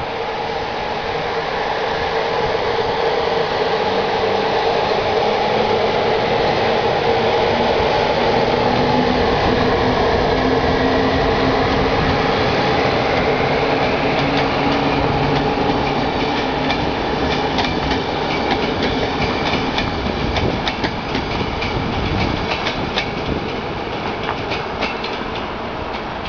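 CFR class 060-EA electric locomotive passing close by with a passenger train. Its steady electric hum swells as it approaches and goes by. From about halfway through, the coaches' wheels click rhythmically over the rail joints as the carriages pass.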